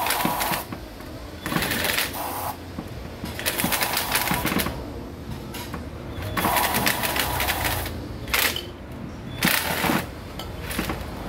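Aerosol brake cleaner sprayed through its straw into the engine block's head-bolt holes in about seven short hissing bursts, each up to a second long, cleaning dirt and rust from the bolt threads.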